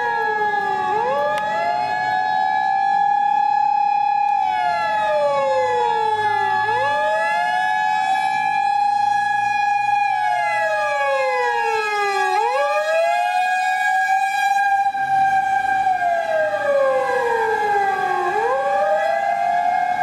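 Japanese fire-engine sirens on an emergency run. One siren wails, rising quickly and sliding slowly back down about every six seconds. Another is held at a steady high pitch underneath it.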